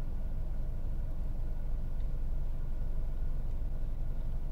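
Steady low engine rumble with a faint hum, unchanging throughout.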